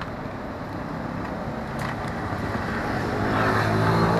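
Road traffic: the steady hum of passing vehicles, with one vehicle's engine growing louder over the second half as it comes closer.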